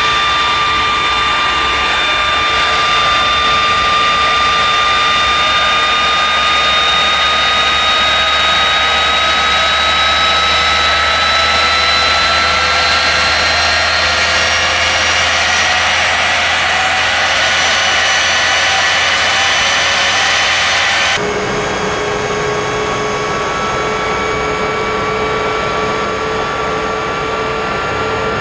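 Westinghouse J34 turbojet running at part throttle: a high turbine whine over rushing air, its pitch slowly rising. About twenty seconds in the sound changes abruptly to a slightly quieter mix with a lower tone.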